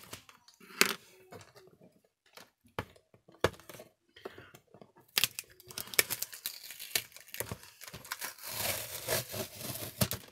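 Gift-wrapping paper and packing tape being peeled and torn off a cardboard box, crinkling and crackling. Scattered snaps at first, then a longer stretch of rustling and tearing in the second half.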